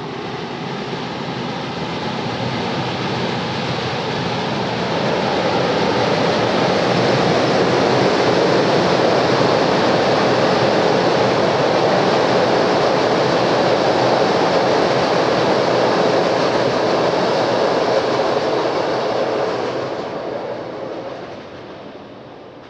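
Locomotive-hauled passenger train running across a steel truss railway bridge, its sound building over the first few seconds, staying steady and loud through the middle, then fading near the end as the last coaches pass.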